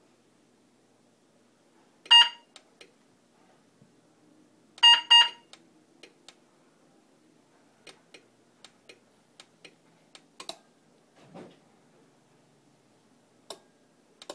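Car alarm siren of a Scytek Galaxy Mobile system chirping: one short loud chirp, then a quick double chirp about three seconds later, the usual single-chirp lock/arm and double-chirp unlock/disarm confirmation. Scattered light clicks and a soft thump follow.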